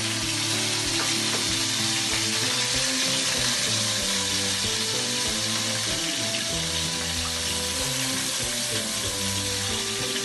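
Stuffed chicken breast sizzling steadily in butter in a frying pan as a honey and ginger glaze is poured over it.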